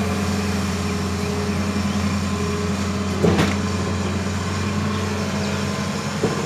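Hitachi Zaxis 200 excavator's diesel engine running steadily while the boom and bucket work, with a sharp knock about halfway through and a smaller one near the end.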